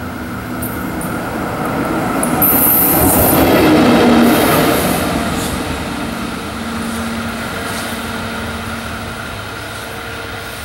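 EF64 electric locomotive passing close on a curve. Its rolling noise builds to its loudest about three to four seconds in, with a brief high squeal of wheels on the curved track near the peak. It then settles into a steadier run with a low hum.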